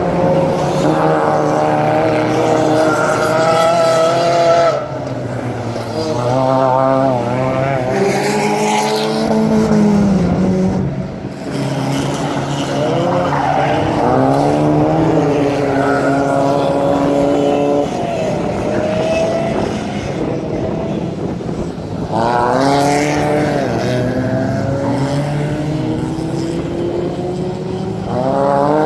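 Several 1600-class rallycross cars racing past, their engines revving hard: the engine notes climb in pitch, drop back at gear changes and throttle lifts, and climb again, over a steady lower engine drone. The revving rises sharply again a few seconds in, around the middle, and near the end.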